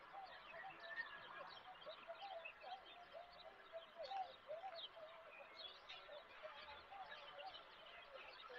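Faint chorus of several small birds chirping and twittering at once, with many short, overlapping notes.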